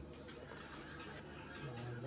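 Faint light clicks over a low steady hum of room background, with a brief low voice near the end.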